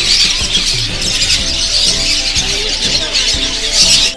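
Many small caged birds chirping together in a dense chatter, with background music underneath.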